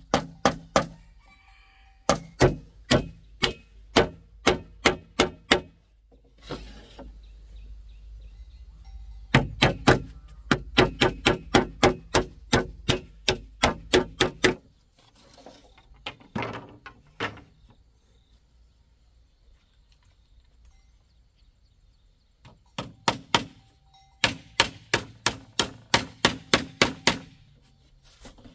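Hammer strikes, as in nailing during construction work, in quick runs of about two to three blows a second with short pauses between the runs.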